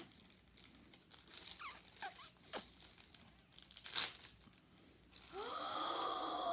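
Cardboard and plastic packaging of a Funko mystery mini box being torn open in several quick crackling rips. About five seconds in, a long drawn-out vocal 'oooh' starts and bends in pitch.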